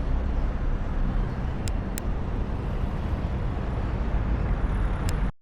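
Outdoor street ambience with the steady rumble of traffic and three brief sharp clicks. The sound cuts off abruptly just before the end.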